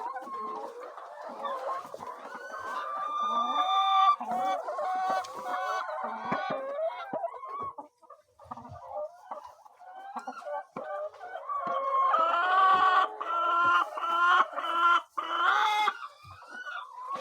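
A flock of chickens clucking and calling, quieter for a couple of seconds near the middle, then louder drawn-out calls over the last few seconds.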